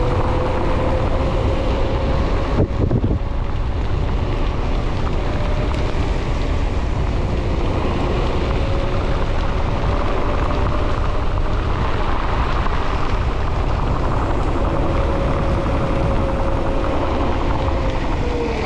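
Wind buffeting the camera microphone over the rolling noise of mountain-bike tyres on asphalt during a fast descent, with a steady hum that drops in pitch near the end as the bike slows. A single knock about three seconds in.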